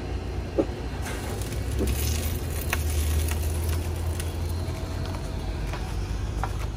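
A dog gives a few short barks in the first two seconds, and once more near the end. Under them runs a steady low rumble.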